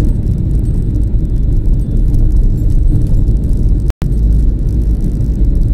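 Steady low rumble of engine and tyre noise heard inside a moving car's cabin. The sound drops out completely for an instant about four seconds in.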